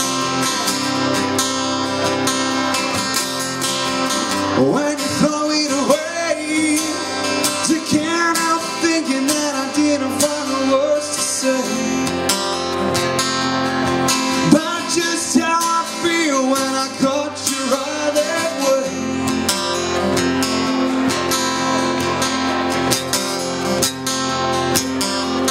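Acoustic guitar strummed steadily, with a man's voice singing over it in two phrases, one from about four seconds in and another around the middle; the guitar plays alone in between and toward the end.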